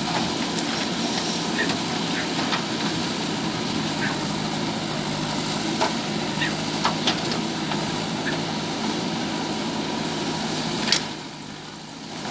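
JCB 3DX backhoe loader's four-cylinder diesel engine running steadily, with a few sharp knocks or clanks. The engine sound falls quieter after a knock about eleven seconds in.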